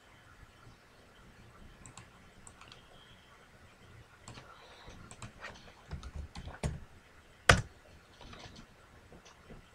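Scattered clicks of a computer keyboard and mouse at a desk, with a few duller knocks around six seconds in and one sharper, louder click about seven and a half seconds in.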